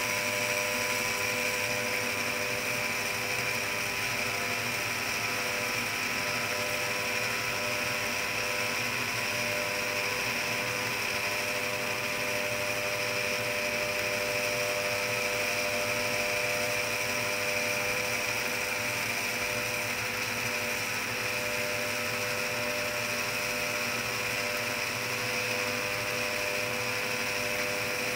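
Motorized circular knitting machine (Circular Knitic) running steadily, a continuous mechanical whir with a constant high whine that does not change.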